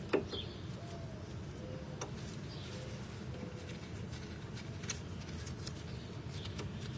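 Scattered metal clicks and clinks of a 10mm wrench working the wheel cylinder bolts on a drum brake backing plate, the sharpest just at the start, over a low steady background rumble. A few faint short chirps sound in the first half.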